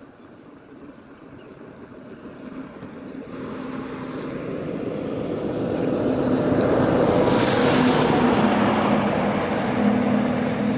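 Truck engine and tyre noise growing steadily louder as it drives up the road, passing close by near the end.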